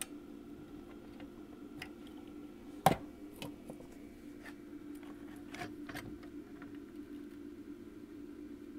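Bench work on a circuit board with a soldering iron: scattered light clicks and taps of handling over a steady low hum, with one sharp knock about three seconds in.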